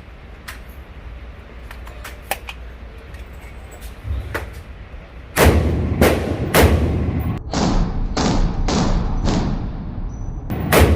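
Gunfire: a few faint cracks, then a string of about eight loud shots starting about five seconds in, roughly one every half second to a second, each with a ringing tail. Loud enough for a shooter to call it loud.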